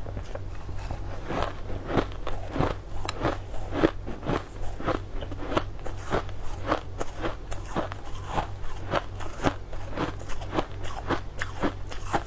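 Shaved ice being crunched and chewed in the mouth: a steady run of sharp, irregular crunches, about two or three a second.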